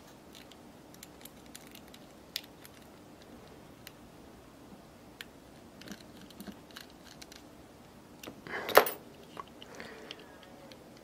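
A jeweller's-size screwdriver driving a tiny screw into a 1/64-scale diecast car's metal body and chassis: faint scattered clicks and scrapes of the driver and small metal and plastic parts, with a louder clack of the parts being handled about nine seconds in.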